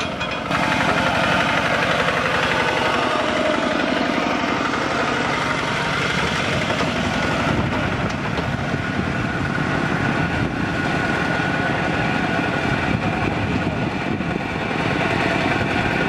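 Two-wheel walking tractor's single-cylinder diesel engine running steadily with a fast chugging beat as it pulls a loaded trailer of rice sacks along a dirt road.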